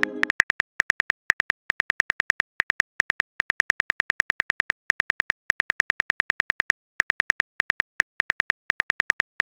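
Simulated phone-keyboard click sounds of a texting-story app as a message is typed out: a quick run of identical ticks, about six to eight a second, in short runs with brief pauses. The tail of a short chime sounds at the very start.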